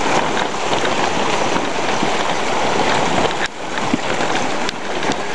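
Heavy rain pouring down, with runoff water rushing along a flooded street and spouting from a drain outlet at the curb. The steady wash of noise dips briefly about three and a half seconds in.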